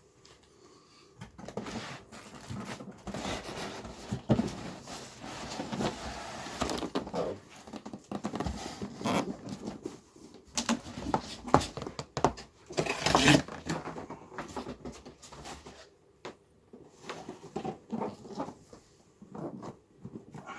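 Cardboard box and plastic packaging being handled and unpacked: irregular rustling and crinkling with light knocks and taps, and a louder crinkle about 13 seconds in.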